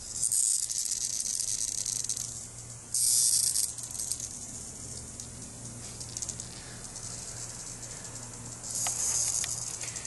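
Cicadas buzzing from inside a dog's mouth: the high, hissing distress buzz of insects being held. It comes in three bursts: a long one at the start, a short one about three seconds in, and another near the end.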